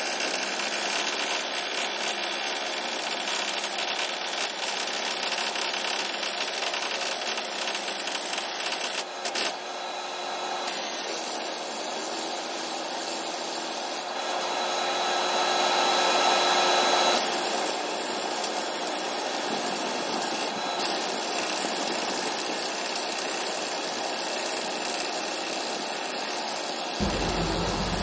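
Air tool running steadily while the bolts holding the scraper's worn router are taken off, growing louder for a few seconds midway.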